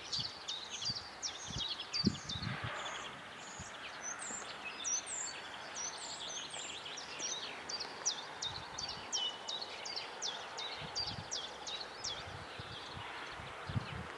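Several small songbirds chirping and singing, many short high calls overlapping, over a steady outdoor hiss with a few soft low thumps.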